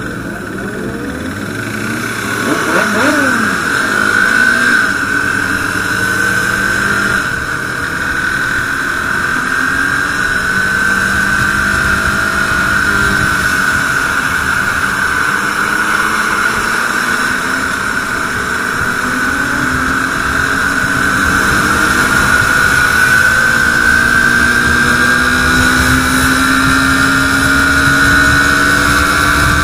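KTM RC 390's single-cylinder engine running under way, over steady road and wind noise, with other sport bikes revving up and down around it in the first few seconds. Over the last several seconds the engine note climbs slowly as the bike accelerates.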